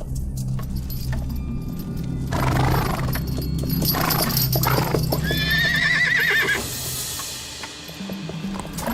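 A horse whinnying, with a long, high, wavering neigh about five seconds in, and hoofbeats over a film score.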